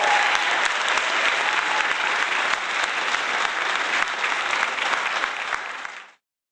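Applause from many hands clapping, fading out and stopping about six seconds in.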